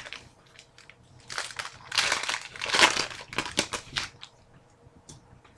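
Hockey trading cards and their packaging being handled: a run of crinkling, rustling strokes lasting about three seconds in the middle.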